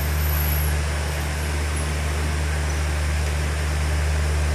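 A steady low mechanical hum over an even rushing noise, with no breaks or strikes.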